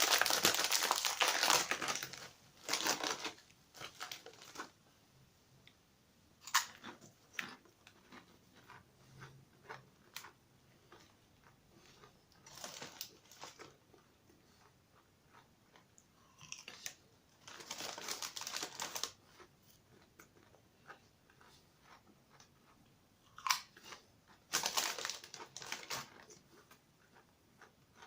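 Crisp packet crinkling and hand-cooked potato crisps being crunched and chewed, in separate bouts with quiet gaps, loudest at the start.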